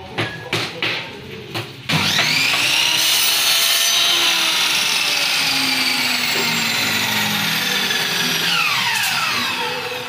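A few knocks, then an electric power tool's motor starts with a rising whine about two seconds in, runs steadily, and winds down with a falling whine near the end.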